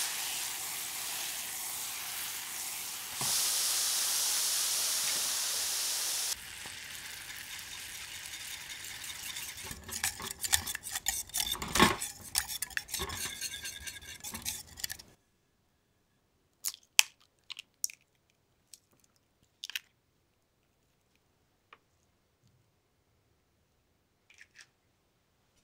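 Hot caramel sauce hissing and sizzling in a small enamel saucepan, loudest for the first six seconds and quieter after. From about ten seconds a small wire whisk stirs it fast, clicking and scraping against the pan, until it stops suddenly; then a few light clinks of glass.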